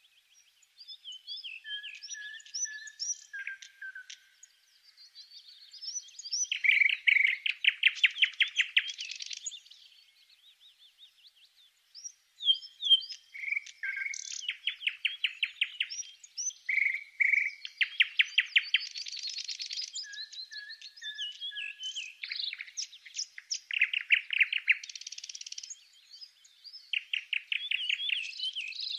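A bird singing: bursts of rapid, buzzy trills alternate with quick chirps and a few held, steady whistled notes.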